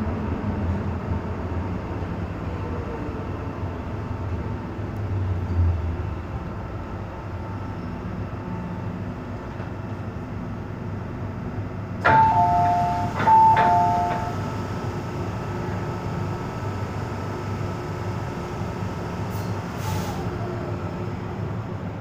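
Hong Kong MTR M-Train running and slowing into a station, a steady rumble with faint whining tones. About twelve seconds in, a two-note door chime sounds twice. A sharp clunk with a short falling whine follows near the end as the doors slide open.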